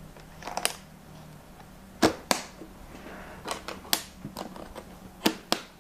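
Aluminium carry case's metal toggle latches being snapped shut: a series of sharp metallic clicks, several in close pairs.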